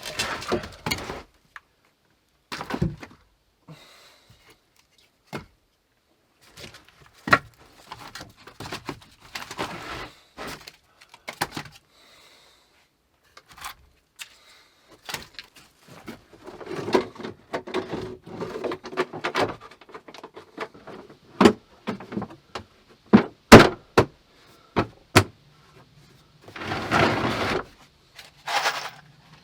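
Irregular knocks, thuds and clatter of objects being handled and set down, with rustling in between and a faint steady low hum near the end.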